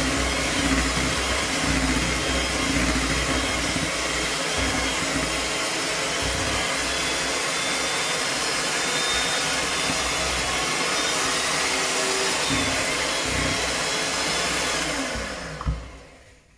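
Kenwood electric hand mixer running steadily, its beaters whirring through thick chocolate cake batter in a plastic bowl. Near the end it is switched off and the motor winds down in falling pitch, with a single knock as it stops.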